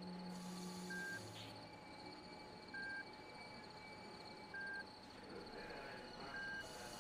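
Hospital bedside patient monitor beeping: a short high beep about every two seconds, four in all, over a faint steady high background tone.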